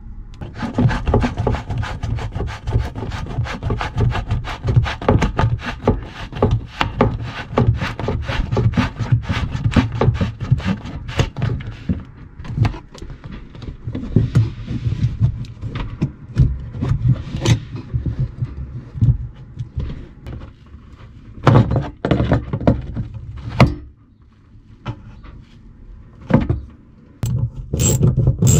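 Hands working plastic sanitation-hose fittings on a holding tank make a long run of irregular scraping, rubbing and knocking that thins out after about 24 seconds. Near the end a ratchet clicks quickly as a metal hose clamp is tightened.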